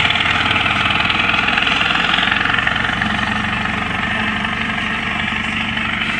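Al-Ghazi tractor's diesel engine running steadily while it drags a rear blade over the field, becoming a little fainter from about three seconds in as the tractor moves away.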